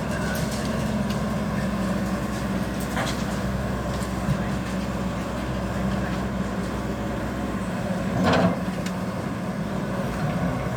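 Tata Hitachi EX200 excavator's diesel engine running steadily under work, with a short, louder noise about eight seconds in and a fainter one about three seconds in.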